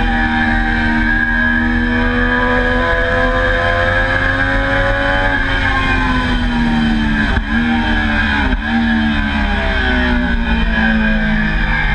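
Triumph Daytona sport-bike engine running hard on track, heard from on board: the engine note climbs steadily for about five seconds, falls for a couple of seconds, breaks twice briefly, then climbs again under acceleration, over a steady rush of wind noise.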